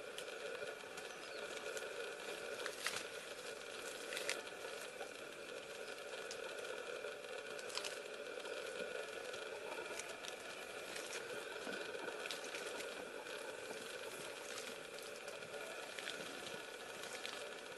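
Leaves and stems rustling and crackling as mountain gorillas move and feed in dense undergrowth, with a few sharp snaps over a steady hiss.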